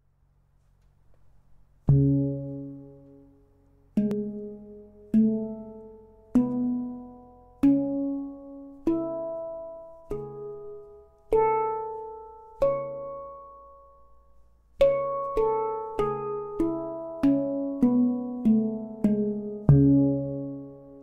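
Lupan handpan tuned to a C# ding with G# A B C# E G# A C# around it, played by hand: single notes struck one at a time, each ringing and fading, about one a second. After a short pause near the middle comes a quicker run of notes, and a low ding note rings out at the end.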